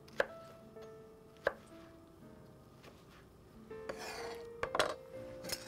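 Chef's knife chopping hot dogs on a cutting board: single sharp knocks of the blade on the board about a second apart early on, then a louder stretch of cutting and handling noise with a few more knocks near the end. Soft background music underneath.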